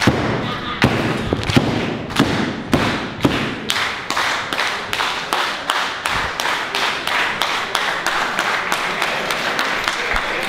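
Wrestling crowd clapping in unison with heavy thuds, about two claps a second, speeding up into fast clapping and applause over the second half.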